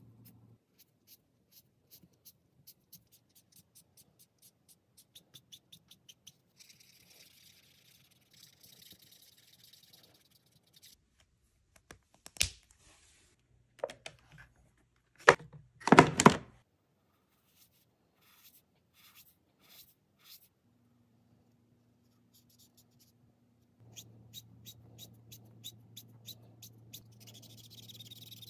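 Copic alcohol markers stroking across paper: light ticks and soft scratchy hiss as the colour is laid down. About halfway through, a few loud knocks and clicks as markers are pulled from and put back into the plastic storage rack, then the strokes on paper resume near the end.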